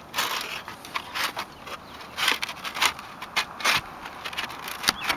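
A thin metal shim being pushed up under a cracked cedar shingle by hand, scraping and clicking against the wood in a string of short, irregular scrapes.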